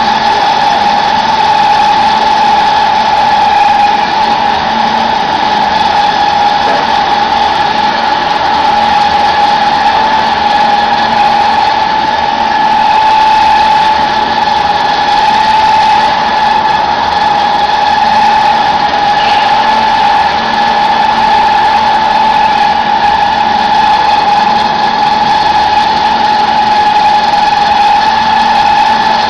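Chicken feed pellet press machine running steadily, with a loud, constant high-pitched whine over a mechanical hum.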